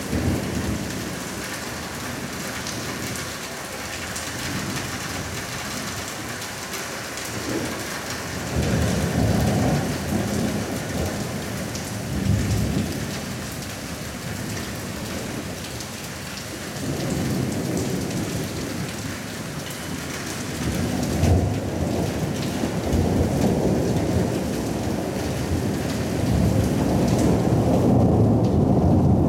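Thunderstorm: steady rain with thunder rumbling several times. There is a long roll about a third of the way in, another about two-thirds in, and a final roll that builds to the loudest point near the end.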